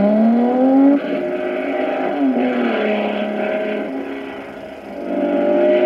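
Racing car engines on an old film soundtrack, revving as the cars pass. The note climbs until a sudden break about a second in, like a gear change, dips and steadies, fades a few seconds later and swells again near the end.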